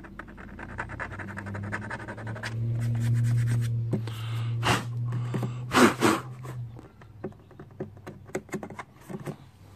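Fingertips rubbing and scratching over a textured plastic scooter body panel, a fast run of small scratches. Then a low steady hum with two loud breathy puffs, about 4.5 and 6 seconds in.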